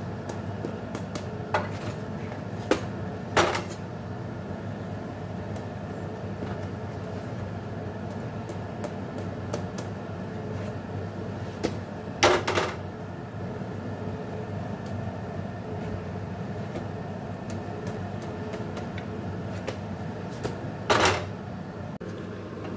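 Metal tongs knocking and clattering against a flat iron griddle and a steel plate, a handful of sharp knocks spread out, over a steady low hum.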